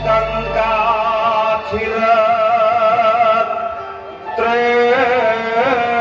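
Live Javanese dance-accompaniment music: a held, wavering sung melody over instruments, dipping briefly about four seconds in before picking up again.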